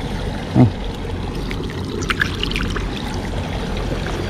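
Water trickling steadily. A brief low sound comes about half a second in, and a few faint clicks follow around two seconds in.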